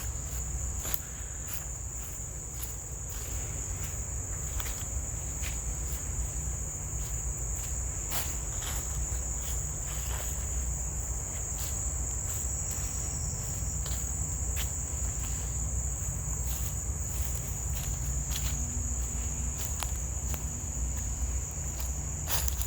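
Steady high-pitched insect chorus, an unbroken drone, over a low rumble, with scattered short clicks.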